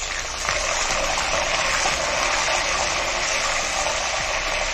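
Fresh curry leaves sizzling hard in hot sesame oil in a clay pot, along with a tempering of mustard seeds, cumin, fenugreek and dried red chillies. The sizzle gets louder about half a second in and then holds steady.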